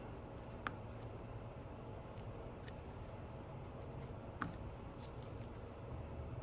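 Two sharp clicks and a few faint ticks of small tools and phone parts being handled during an iPhone 11 repair, over a steady low hum.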